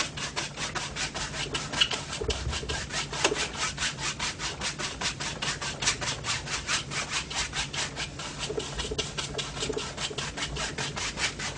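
A 2-inch paint brush scrubbing back and forth on a stretched primed canvas, blending oil paint in rapid even strokes, about four strokes a second.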